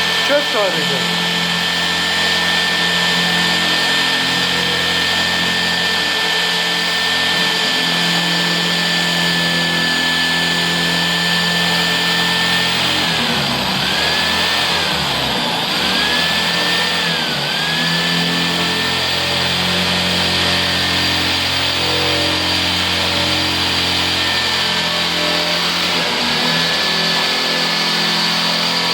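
Mac Allister hammer drill running under load as it drills. The motor's whine holds steady, then sags and recovers several times about halfway through and once more near the end, as the bit meets resistance.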